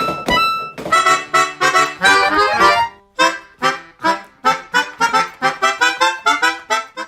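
Instrumental music: a bouncy jingle of short, separate notes, about three to four a second.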